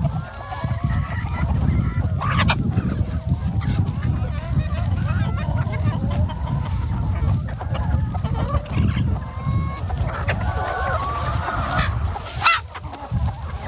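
A flock of chickens clucking, with many short overlapping calls and one sharper, louder call near the end, over a steady low rumble.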